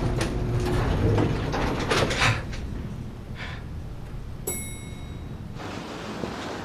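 Lift travelling with a low rumble, then a single ringing arrival chime about four and a half seconds in, and the lift doors sliding.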